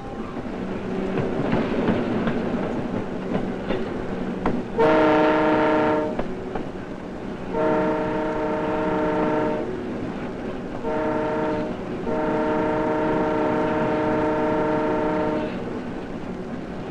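Diesel locomotive's air horn sounding the grade-crossing signal, two long blasts, one short and one long, each a chord of several notes, over the rumble of the passing train. This is the standard warning of a train approaching a road crossing.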